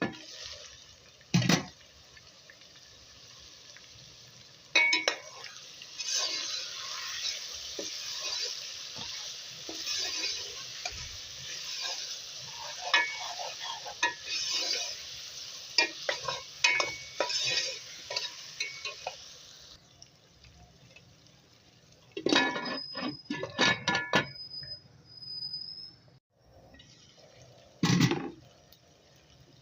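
Food sizzling as it fries in a pot while a metal spoon stirs, scraping and clinking against the pan. The sizzle stops about two-thirds through, followed by a quick run of clinks and a single knock near the end.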